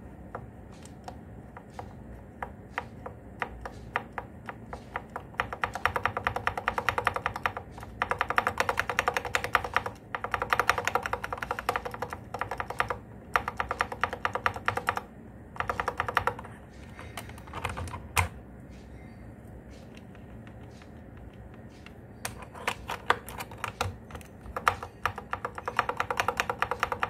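Lubed clicky Outemu blue switches on an Armaggeddon MKA-9C mechanical keyboard, the backspace and the keys around it pressed over and over. The clicks come in rapid flurries lasting a few seconds each, with quieter spells of slower single presses between.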